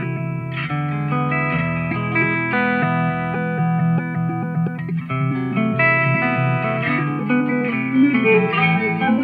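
Electric guitar played through an Old Blood Noise Endeavors Dweller phase repeater/delay pedal. Held chords change every second or so, with a metallic, regenerating repeat effect.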